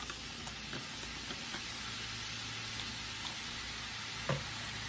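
A butter-and-flour roux, with chicken drippings and a splash of lemon juice, sizzling and bubbling in a cast-iron skillet. It gives a steady hiss with scattered small pops and one sharper tick about four seconds in.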